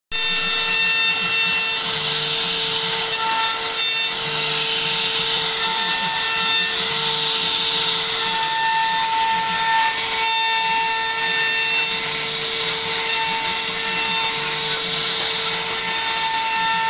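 CNC router spindle carving a wooden door panel: a steady whine from the spindle over the hiss of the bit cutting wood, with higher tones fading in and out as the cut changes.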